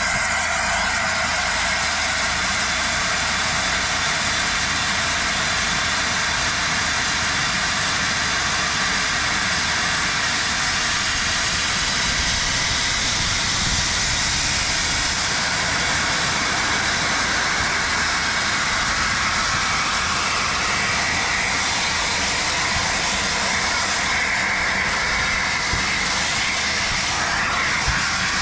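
Steam hissing steadily from the LNER A4 Pacific steam locomotive Sir Nigel Gresley, with no chuffing beat.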